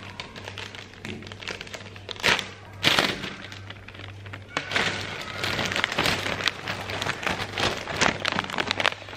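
Handling noises from packing: a steady run of crinkling and clicks, with two sharp knocks a few seconds in and busier crinkling from about halfway, over soft background music.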